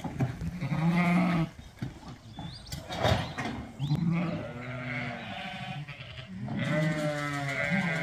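Zwartbles ewes bleating: several long bleats one after another, calling for their feed. A short knock sounds about three seconds in.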